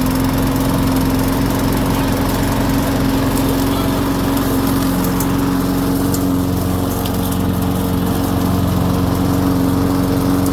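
Briggs & Stratton 150 cc single-cylinder lawn mower engine running steadily at a constant speed, back running after a carburetor cleaning and a new spark plug.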